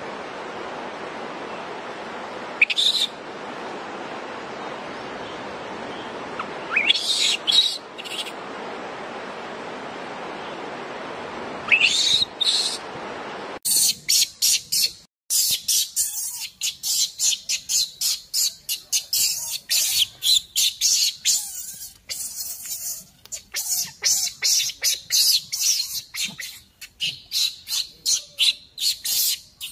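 Baby macaque crying. A few short, high, rising screams over a steady hiss come in the first half. After that come rapid high-pitched cries, about two a second.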